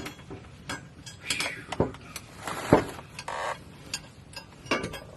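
Scattered metallic clinks and knocks of a wrench and bolts being worked against a steel driveshaft safety loop as it is fitted up, with one louder knock a little over halfway through.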